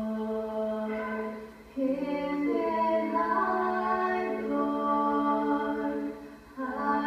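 Two girls singing a duet into microphones, long held notes in phrases with a short break about a second and a half in and another near the end, heard through a television's speaker.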